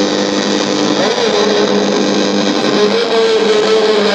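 Music playing through a homemade sound bar driven by a 4440 dual-IC amplifier kit: a wavering melody over steady low tones, with a steady hiss beneath it.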